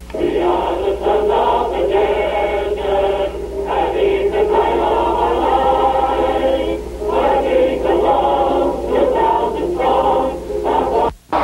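A group of voices singing together in sustained phrases, over a steady low hum.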